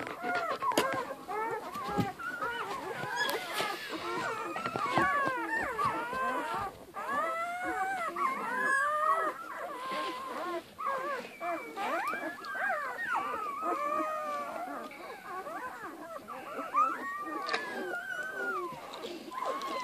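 A litter of two-day-old puppies whining and squeaking over one another without a break: many thin, high cries, each rising and falling.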